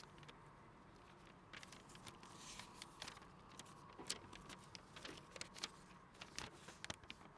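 Paper being handled and unfolded: a quiet, irregular string of small crackles and rustles, the sharpest about four seconds in, over a faint steady room hum.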